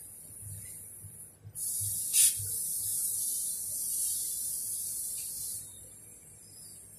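Stick (shielded metal arc) welding on steel pipe: the arc's hissing crackle, faint at first, louder from about a second and a half in with a sharp crack as it starts, and stopping about a second and a half before the end.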